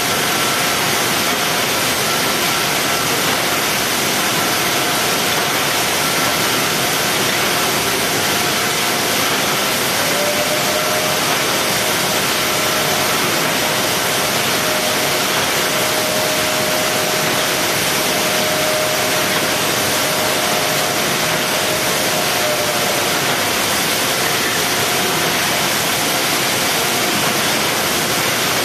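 Steady loud hiss of factory machinery on a box-palletizing line, with faint whining tones that shift slightly in pitch through the middle.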